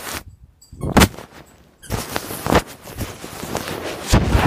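Rustling and knocking noise from the phone's microphone being handled and jostled, with a sharp thump about a second in and a louder burst of rubbing near the end.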